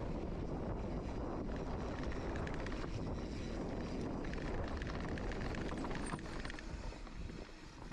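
Steady rumble of a mountain bike being ridden on a dirt trail: wind buffeting the camera microphone and tyres rolling over the ground, with small clicks and rattles. It drops in level for the last second or two.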